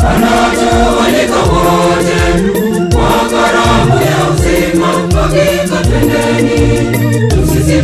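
Church choir singing a hymn over a steady beat of bass and percussion.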